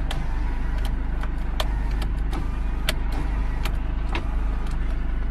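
Steady low rumble of car cabin noise with scattered light clicks and taps.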